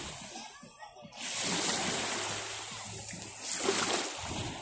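Sea water washing in at the shoreline: broad surf noise that swells and fades, with some splashing.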